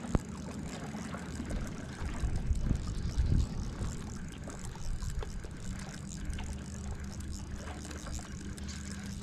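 Wind buffeting the microphone in low gusts, strongest a few seconds in, over small waves lapping at the lakeshore. A faint steady hum joins about six seconds in.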